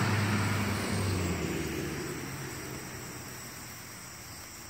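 A motor vehicle driving past, its engine hum and road noise fading away into the distance.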